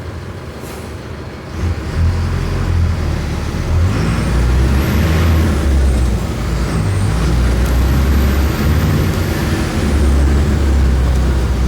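Mercedes-Benz OF-1418 bus's OM-904LA four-cylinder turbodiesel engine running, getting louder about two seconds in and staying loud. Its pitch shifts a few times as it goes. A faint high whistle rises and falls twice in the middle.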